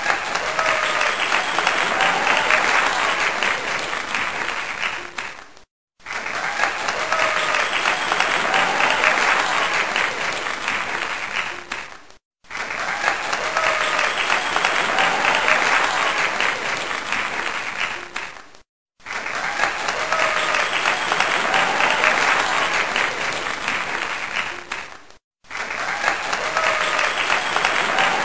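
Crowd applause, a clip of about six seconds looped over and over, each repeat cut off sharply by a brief silent break: four breaks, five stretches of clapping.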